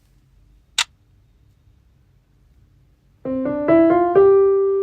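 Piano playing a short rising phrase of about five notes, the last note held and ringing. A single sharp click comes about a second in.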